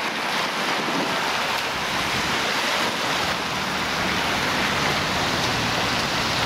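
Steady hiss of car tyres on wet asphalt as traffic drives past close by.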